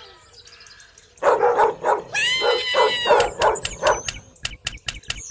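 Dog barking: a quick run of barks about a second in, then a longer whining yelp, then a string of short sharp yips.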